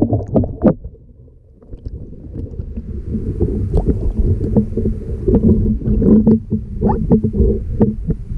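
Knocks and bumps in a canoe as a fish is handled, over a low rumble of wind and handling noise on the microphone that comes in about three seconds in.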